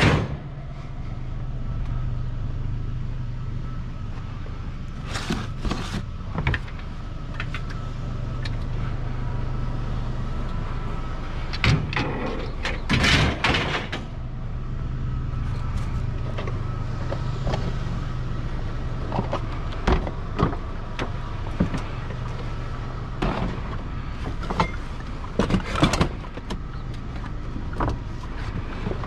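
Vehicle engine running with a steady low hum while driving, with scattered knocks and rattles every few seconds.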